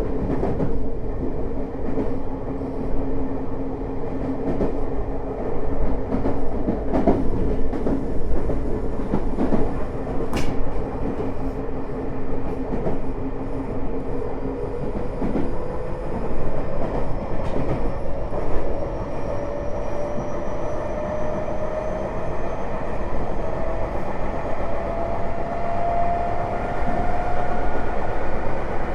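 Tokyo Metro 05 series train with a Mitsubishi IGBT-VVVF inverter, heard from inside the car: steady running noise of the wheels on the rails with scattered clicks. Its steady electrical tones give way about halfway through to a motor whine that climbs in pitch as the train gains speed.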